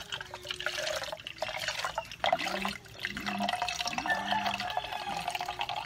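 Alcohol vinegar being poured from a bottle into a plastic measuring jug, a splashing trickle in uneven spurts.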